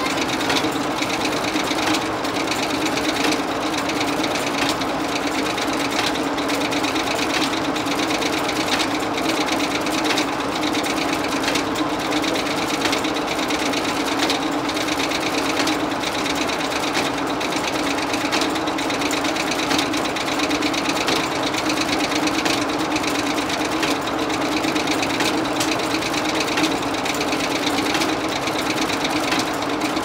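Steam-powered sawmill machinery running steadily with no load: the circular saw and its drive turning idle, with a steady hum and a fast, even knocking beat.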